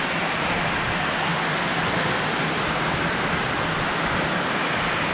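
Water rushing steadily over a low stone weir in a small river, an even rushing noise without a break.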